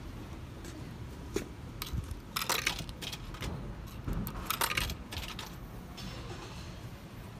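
Drink vending machine in use: coins clinking as they drop in, with clattering knocks in two bunches, about two and four seconds in.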